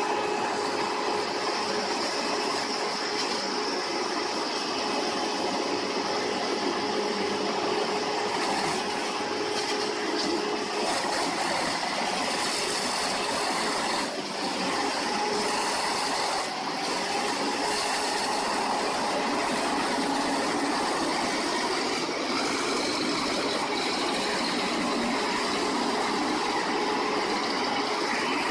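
Large industrial wood chipper running steadily, with a constant machine whine over its noise.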